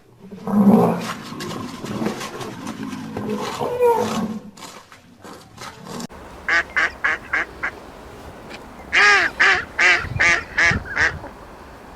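Ducks quacking: two quick runs of about five short calls each. In the first half, an animal's low growling sound.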